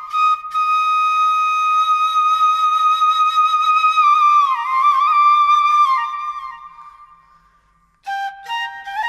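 Flute music: one long held note, then a short run of notes that fades away. A new phrase begins near the end.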